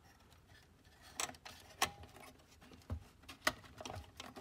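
A handful of faint, sharp clicks and taps as plastic and metal parts of a slide projector are handled and a cover is fitted into its chassis.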